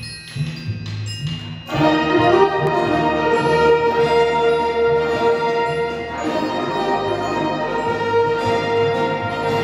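Concert band playing: soft low notes at first, then the full band, brass to the fore, comes in loudly a little under two seconds in and holds sustained chords.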